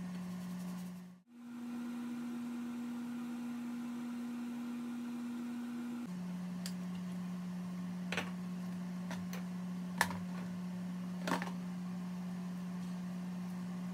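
Steady low electrical-sounding hum. It cuts out briefly about a second in, returns slightly higher in pitch, and drops back to its first pitch about six seconds in. A few sharp clicks come in the second half.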